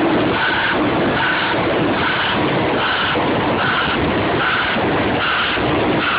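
Heavy earthmoving machinery running steadily: a tracked excavator working with a wheel loader close by. A short beep repeats a little more than once a second over the engine noise.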